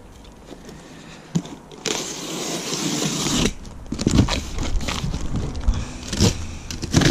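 Box cutter slicing through corrugated cardboard: a long continuous scraping cut about two seconds in, then short cuts, crackling and knocks as the cardboard is worked.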